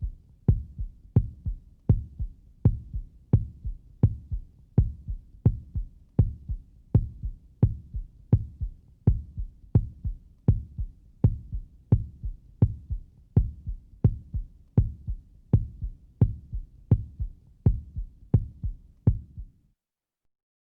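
Normal resting human heartbeat: an even lub-dub, each beat a louder low thump followed closely by a softer one, at about 80 beats a minute. It stops abruptly near the end.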